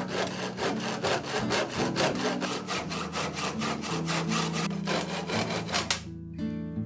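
Hand saw cutting through an old wooden axe handle just above the head, in quick, even back-and-forth strokes, about three to four a second; the sawing stops about six seconds in.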